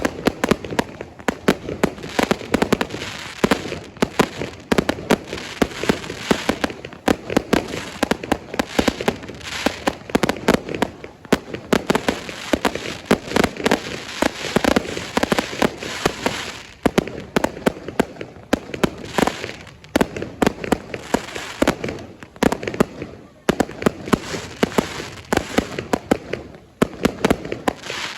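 Fireworks going off: a dense, rapid run of bangs and crackling with hardly a break, easing briefly about two-thirds of the way through and again near the end.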